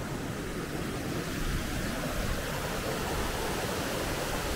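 Mountain stream tumbling over boulders in a small waterfall: a steady rush of white water.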